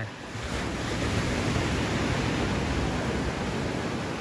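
A steady rushing noise that swells about half a second in and holds level.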